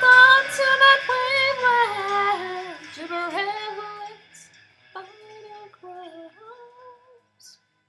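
Music: a woman singing the final drawn-out notes of a song. The backing drops out about four seconds in, and a few last sung notes trail off shortly before the end.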